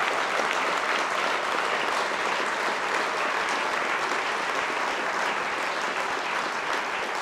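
A large seated audience applauding steadily, a dense, even clapping.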